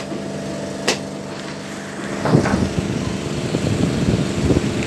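A hammer knocks once on a coconut shell about a second in; from about two seconds in there is a run of irregular cracking and scraping as the shell is worked open by hand. A steady motor hum runs underneath.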